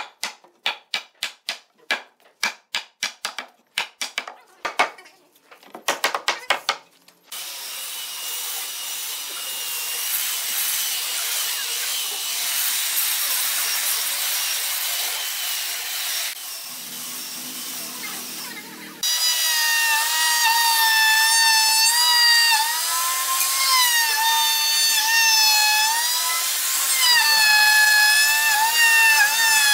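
Hammer blows on a hardwood frame, about three a second, for the first several seconds. Then a handheld electric sander runs steadily on the wood. About two-thirds of the way through, a handheld router starts with a loud high whine whose pitch dips and recovers as it cuts.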